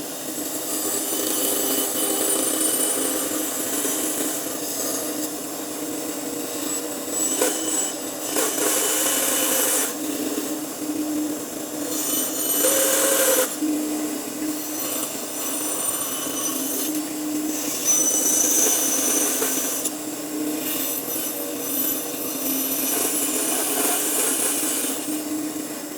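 An electric power tool running steadily as it works wood, a constant motor hum under a cutting noise that swells and eases several times as it bites into the wood.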